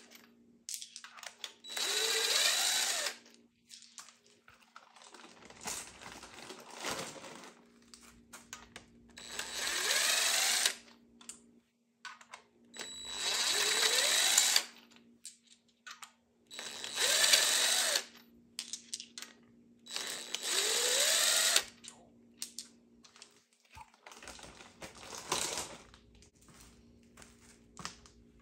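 Impact wrench running in short bursts while taking fasteners off a small-block Chevy 350, five times. Each burst rises in pitch as the motor spins up. Quieter clicks and rattles of hand-tool work come in between.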